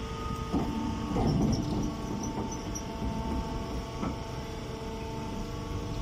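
Hydraulic straw baler's electric motor and hydraulic pump running with a steady hum, with some louder uneven noise in the first couple of seconds.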